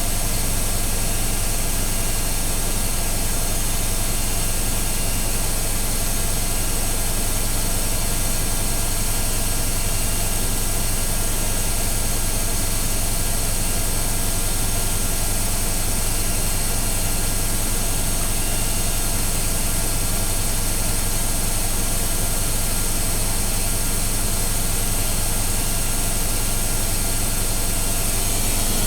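AEG Öko-Lavamat front-loading washing machine in a fast spin, giving a steady low hum with a constant whine and hiss that keep an even pitch throughout.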